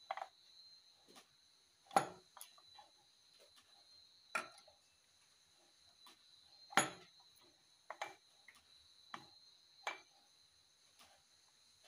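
Steel engine parts clinking and knocking as the crankshaft, connecting rods and camshaft gear of a Volkswagen air-cooled engine are handled in the open crankcase half: about ten separate sharp clicks, the loudest about two seconds and seven seconds in. A steady high-pitched tone runs behind.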